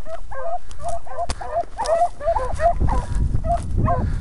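Beagles giving tongue on a rabbit track: quick, overlapping barks, several a second, from more than one hound.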